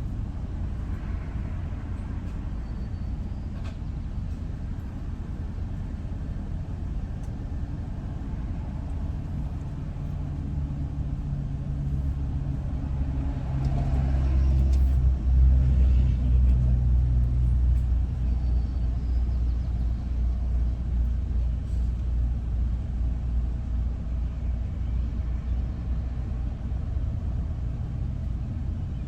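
Motor vehicle on the road: a steady low rumble, with an engine drone swelling louder about halfway through and then easing back.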